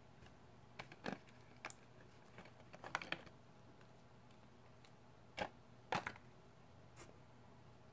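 Faint, scattered clicks and light taps from small objects being handled, with a cluster about three seconds in and two sharper clicks near six seconds.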